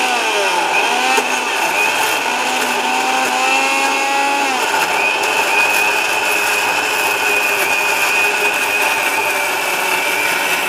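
Sahara mixer grinder's motor running at speed, grinding whole ginger and onion pieces into a paste without water. Its pitch sags and recovers in the first few seconds, then holds steady.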